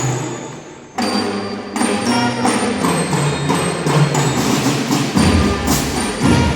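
Band music led by percussion, with sharp rhythmic strikes and bell-like pitched tones. A struck chord fades for about a second before the rhythm comes back in. A deep low drum part enters near the end.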